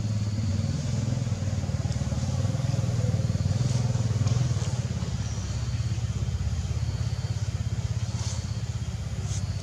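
A motor engine running steadily nearby, a low rumble with a fast even pulse.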